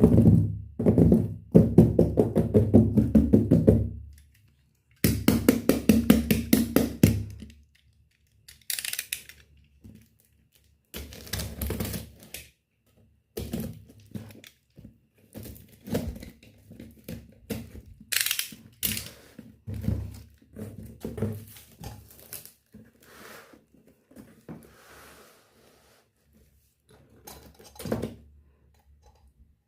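Unboxing a miniature toy steel kitchen set: a fast run of knocks and rattles in the first few seconds and again a little later, then scattered clicks and taps of small toy pieces and packaging being handled.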